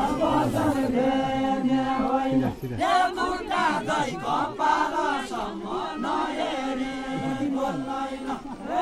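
A group of men singing a Deuda folk song together, a chanted melody sung in phrases with long held notes.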